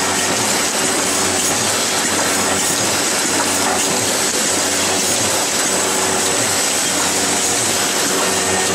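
Automatic cartoning machine running, feeding condom sachets along its conveyor and into cartons: a steady mechanical din with a faint high whine.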